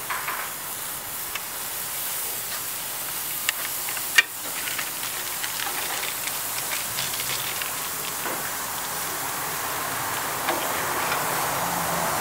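Raw beef burger patties sizzling on a hot grill grate: a steady hiss with scattered crackles and pops, and one sharp click about four seconds in.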